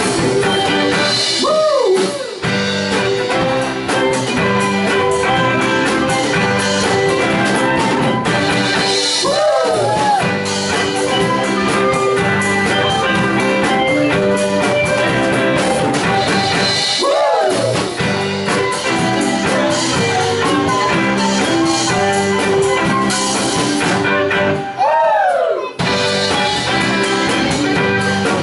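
Live band playing: electric guitars, bass guitar and drum kit at full volume. A note that bends up and then back down comes round about every eight seconds.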